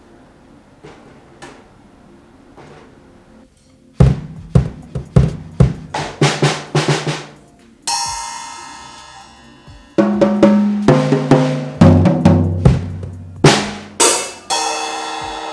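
Acoustic drum kit being played after a few seconds of quiet: quick runs of strokes on snare, toms and bass drum, with tom fills that step down in pitch. Crash cymbals ring out about halfway through and again near the end.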